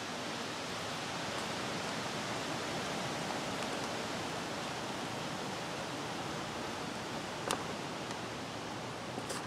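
Steady, even hiss of background noise, with one faint click about seven and a half seconds in.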